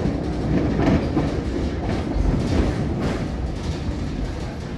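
Running noise of a V3A-93 tram heard from inside the car: a steady low rumble of the wheels on the rails, with a few faint clacks.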